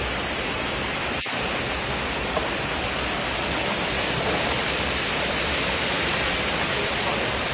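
Steady loud sizzling of julienned carrots frying in hot oil in a huge cauldron, broken for an instant about a second in.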